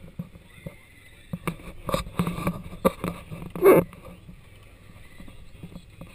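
Sounds aboard a small sailboat under way: irregular knocks and bumps of gear and fittings over a steady low rush of water and wind. The knocks come thickest in the middle, with the loudest bump a little past halfway.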